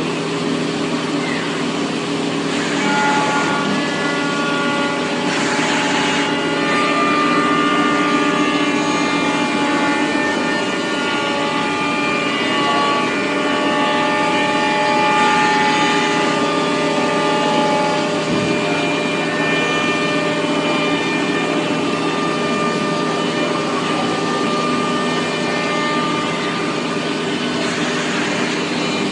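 CNC machining centre and loading robot running: a steady machine hum with higher whining tones that come and go and shift in pitch every few seconds.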